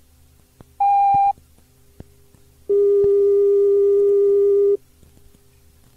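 Steady electronic signal tones recorded on a Shinkansen on-board announcement cassette: a short higher beep about a second in, then a lower steady tone lasting about two seconds, over faint tape hum.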